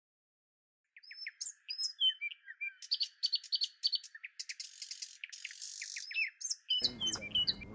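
Small birds chirping and trilling: quick high chirps, several overlapping, beginning about a second in. Music comes in near the end.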